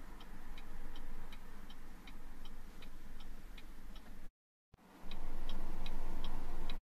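2019 Cadillac XTS's hazard warning flasher ticking: an even tick-tock of relay-style clicks, about three a second. The ticking breaks off for half a second about four seconds in, then goes on.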